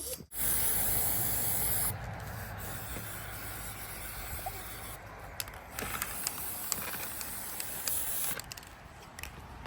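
A steady hiss, loudest and brightest for the first two seconds, then settling to a lower, even hiss with scattered light clicks.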